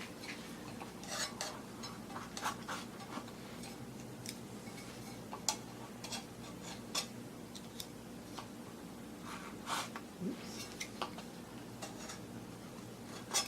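A knife scraping old deteriorated foam and glue off the edge of a plastic speaker cone in short, irregular light scrapes, over a steady low hum.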